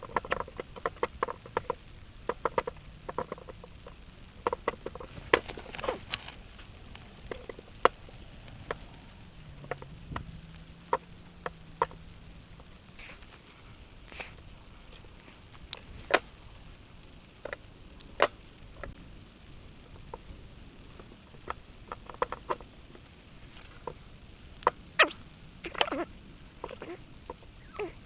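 Irregular sharp clicks and knocks, some single and some in quick clusters, over a low steady hiss.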